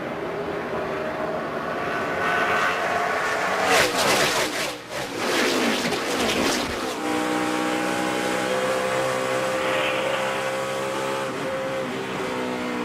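NASCAR Sprint Cup stock cars' V8 engines at racing speed. About four seconds in comes a loud burst of sharp crashing noise with the engine note dropping away, as in a spin or wreck. Then the engines settle to a steady drone.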